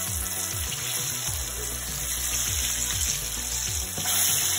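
Battered chicken wings deep-frying in hot oil: a steady, bubbling sizzle.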